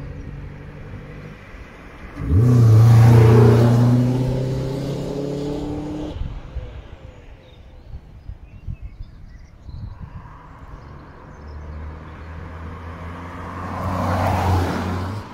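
Cars driving past on a short straight road. About two seconds in, one comes through suddenly and loud, its engine holding a steady note that fades over about four seconds; near the end a blue Ford Focus hatchback passes with a quieter engine note that swells and falls away.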